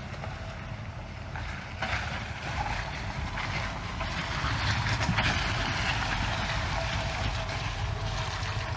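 Toyota Land Cruiser's engine running low and slow as the truck creeps down a muddy, rocky slope, getting gradually louder as it comes closer. Its tyres crunch over stones and mud.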